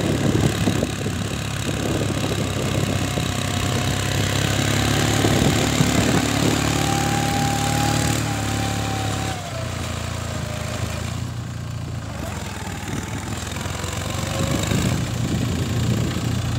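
Captain 7G mini tractor's engine running steadily under load while pulling a cultivator through dry soil, a little quieter from about halfway through.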